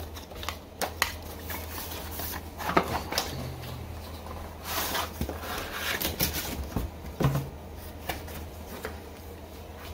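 Hand handling of packaging as a small accessory is unpacked: scattered clicks, knocks and rustles, over a steady low hum.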